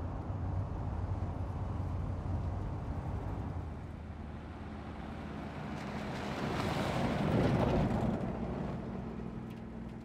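Pickup truck driving on a dirt road: a steady engine hum under tyre and road noise, swelling into a louder rush about seven seconds in and then fading.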